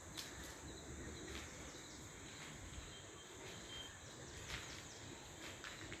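Faint forest ambience: a steady insect hiss with a few short chirps and clicks scattered through, and a brief high note about three and a half seconds in.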